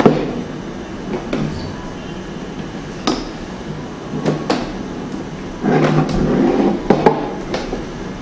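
Panels of a Dslrk LED photo light box knocking and clicking as they are fitted together by hand, with about five sharp knocks and a longer rubbing, sliding sound about six seconds in.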